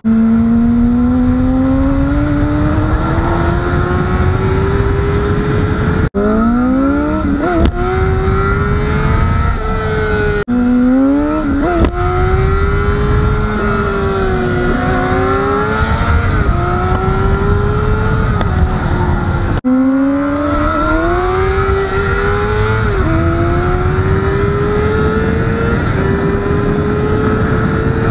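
Honda CBR600RR's inline-four engine pulling through the gears while ridden. The pitch climbs steadily in each gear and drops at each upshift, over a steady rush of wind and road noise. The sound breaks off sharply three times and restarts low, climbing quickly through several shifts.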